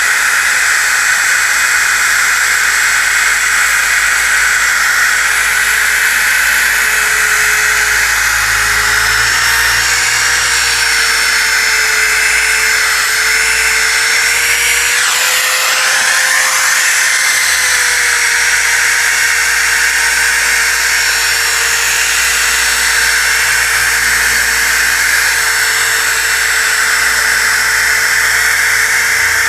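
DeWalt DWE6401DS disc sander running steadily against a wooden board, a motor whine over the hiss of the abrasive. Its pitch rises a little about halfway through, then settles back.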